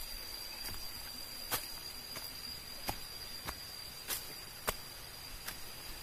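Footsteps on dry leaf litter and twigs along a forest trail, one crunching step about every two-thirds of a second, over a steady high-pitched whine.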